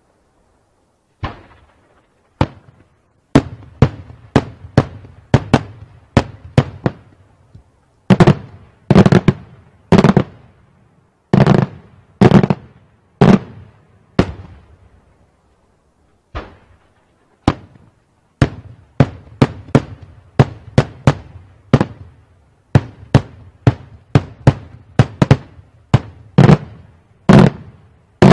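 Daytime aerial firework shells bursting overhead in a long, irregular string of loud, sharp bangs, about one or two a second, some in quick pairs. The bangs start about a second in and pause for a couple of seconds around the middle.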